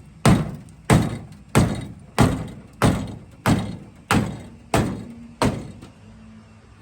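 Hammer blows on car body sheet metal, struck in a steady rhythm of about one and a half blows a second, each with a short ring, stopping about five and a half seconds in.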